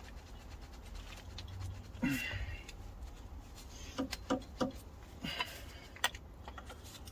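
Hand tools working a stubborn bolt on an engine: a scrape about two seconds in, then a string of short sharp metallic clicks from about four seconds on, over a low hum.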